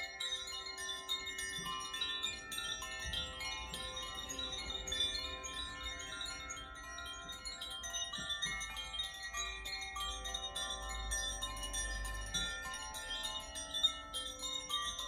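Koshi chimes swirled gently, their clappers striking continually so that many soft, overlapping ringing tones sound together.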